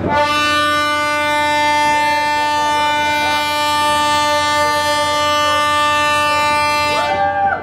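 Ferry's horn sounding one long, steady blast of about seven seconds, stopping near the end, as the ship approaches the harbour.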